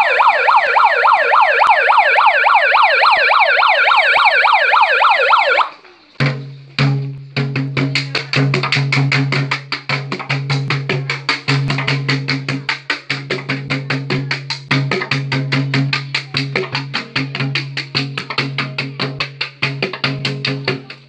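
A siren wails in a fast warble, about three to four rises a second, then cuts off just under six seconds in. Music with a fast clicking percussion beat and a steady bass line takes over.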